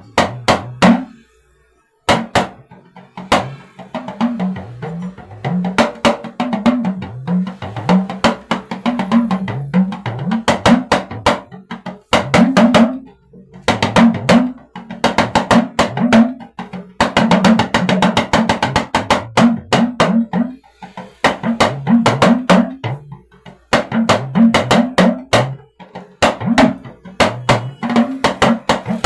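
Talking drum played in quick rhythmic phrases, its struck pitch bending up and down between strokes as the drum is squeezed, with a brief pause about a second in. It is being played to sound check the drum's pitch and resonance.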